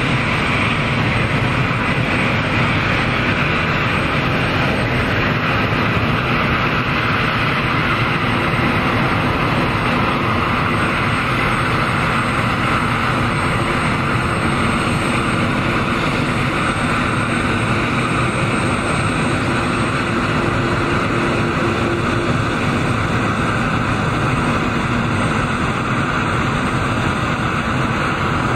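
The four GE CF6 turbofan engines of a VC-25A Boeing 747 running at low power as the jet rolls along the runway: a steady jet rumble and hiss that holds even throughout.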